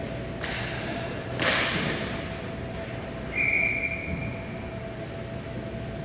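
Two sharp knocks, the louder about a second and a half in, then a single steady high tone held for about a second and a half, over a constant low hum.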